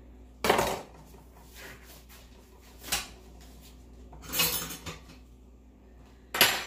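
Kitchen utensils and dishes clattering: four short knocks and clinks spread over several seconds, the third a slightly longer rattle.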